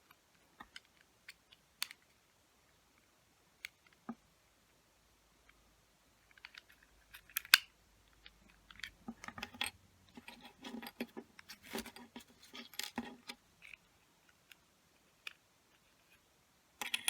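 Hard plastic parts of a 1980s Gundam model kit clicking and rattling as they are handled and tried together: scattered single clicks at first, then a busier run of clicks and rattling in the middle, with one sharp louder click about seven and a half seconds in.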